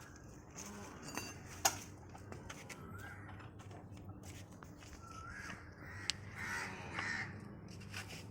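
A bird calling several times in short calls a few seconds apart, the longest and loudest near the end, with a few sharp clicks in between.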